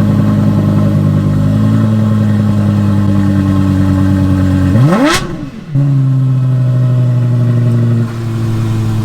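Lexus LFA's 4.8-litre V10 idling steadily, with one quick throttle blip about five seconds in: the revs shoot up and drop straight back to idle.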